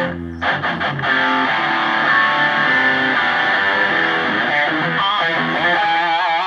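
Distorted electric guitar on a heavy crunch tone, played back over a loudspeaker. It starts with short muted chugs, moves into held chords, and near the end has sustained notes with wide vibrato.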